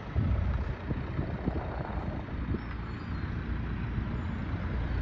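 Low, uneven rumble of street noise, with no voices.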